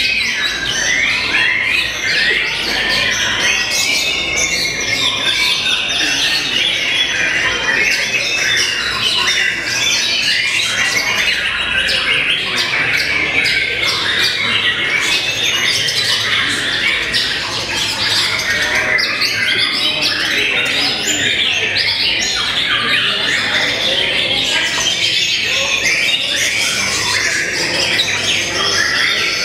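White-rumped shamas (murai batu) singing in a dense, unbroken chorus of fast whistles, trills and chattering from many caged contest birds at once, with the caged shama in front singing among them.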